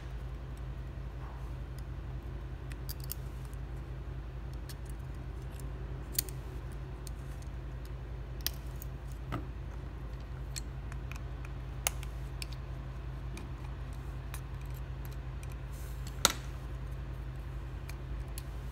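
Scattered small clicks and taps from handling the opened Samsung Galaxy A12's internals with fingers and metal tweezers, about five in all, the sharpest near the end, over a steady low hum.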